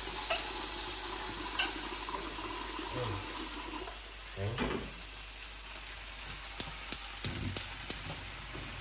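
Rice sizzling as it fries in a pot, with water running over the first few seconds. Near the end comes a quick run of sharp clicks, like a utensil knocking against the pot.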